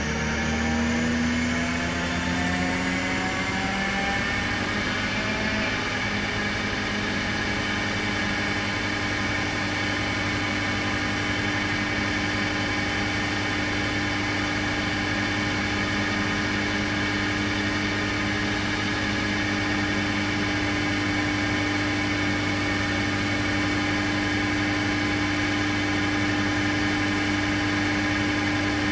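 Car engine and exhaust running in gear on a rolling-road dyno, wheels spinning on the rollers: the pitch rises over the first few seconds, then holds at a steady speed.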